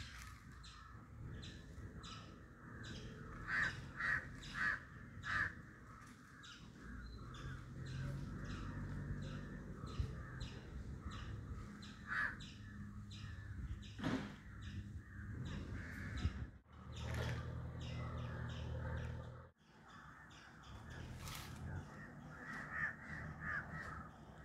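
Crows cawing: a quick run of four caws a few seconds in, and more caws near the end.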